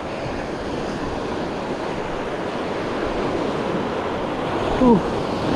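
Surf washing in and breaking over shore rocks, with wind buffeting the microphone. Near the end a short, falling vocal exclamation is the loudest moment.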